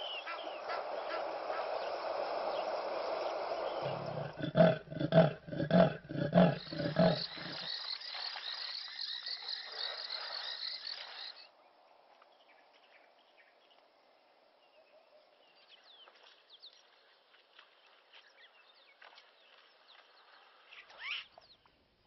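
Hippos calling: a series of about six deep grunting honks over three seconds, about four seconds in, above a steady noisy background. The sound drops suddenly to faint bush ambience with small bird chirps.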